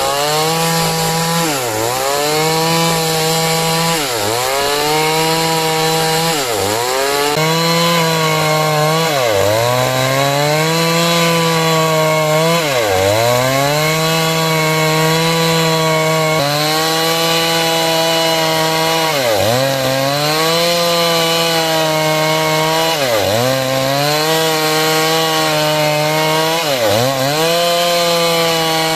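Stihl chainsaw running at high revs while ripping a large timber lengthwise into small square rafters. Its pitch dips sharply and recovers every few seconds.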